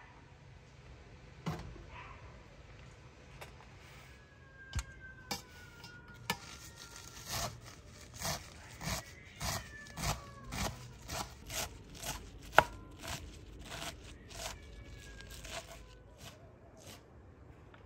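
Large kitchen knife chopping fresh herbs on a wooden cutting board: a few scattered knocks, then a steady run of chops about two a second, one of them much louder, stopping shortly before the end.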